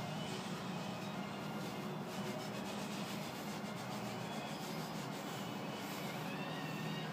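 Recorded snoring noise played back to a kitten, a steady low drone with no break.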